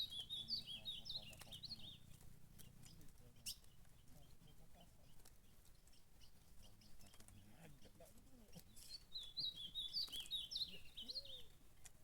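Ultramarine grosbeak (azulão) singing two short, rapid warbled phrases, one at the start and another about nine seconds in, with a few faint clicks between.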